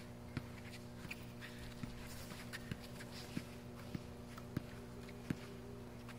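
Basketball being dribbled on a concrete court: short knocks about every two-thirds of a second, over a steady low hum.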